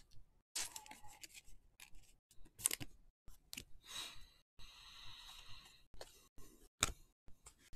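Trading cards being handled: cards clicking and sliding against one another as a pack is gone through one card at a time. There are two sharper snaps, a little under a third in and near the end, and a short sliding rasp just past the middle.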